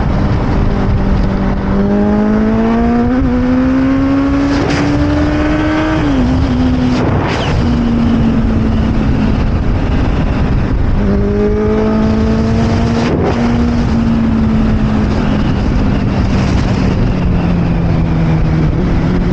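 Motorcycle engine under way, heard onboard over heavy wind and road noise: the revs climb for a few seconds, drop sharply about six seconds in, then climb again a little past halfway and slowly ease off.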